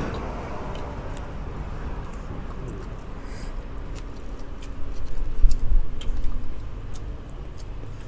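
Close-up eating sounds: chewing and gnawing at pork bones, with small clicks of chopsticks and utensils. A low rumble swells louder for a second or two about five seconds in.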